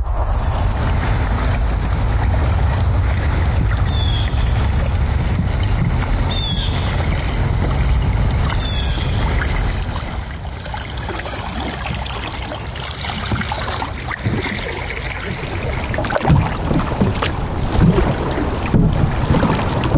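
Kayak paddling on a calm river: paddle blades dipping and splashing beside the hull, with wind rumbling on the microphone. Near the end the paddle strokes come louder and uneven.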